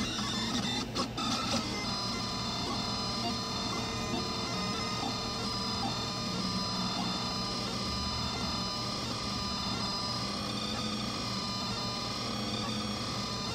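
Delta 3D printer printing: its stepper motors whine in steady tones that shift in pitch as the print head moves, with a few sharp clicks about a second in.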